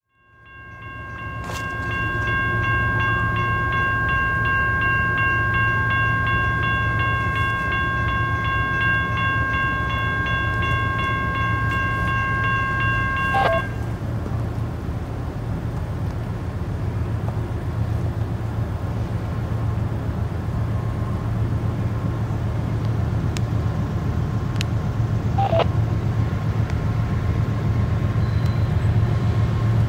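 Diesel locomotive horn sounding one long chord of several notes, held for about twelve seconds and cut off suddenly, over the steady low rumble of the approaching GE ES40DC locomotives' diesel engines, which grows slowly louder toward the end.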